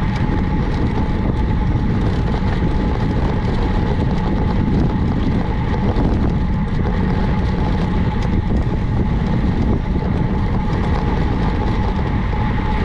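Steady wind rumble on the microphone of a moving road bike, with a constant thin whine over it.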